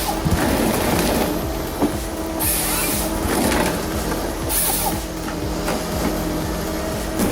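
Heavy diesel logging machine running steadily, with occasional wooden knocks and two short bursts of high hiss, about two and a half and four and a half seconds in.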